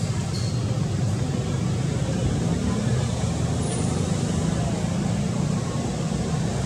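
Steady low rumble of a running engine, like a motor vehicle.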